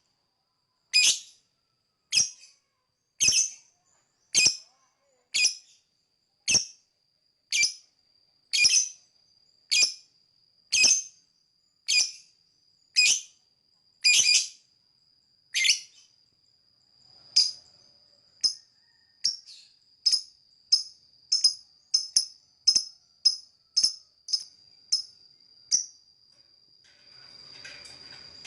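Lovebird giving short, sharp chirps, about one a second, which turn shorter and quicker about halfway through. A faint steady high tone runs underneath.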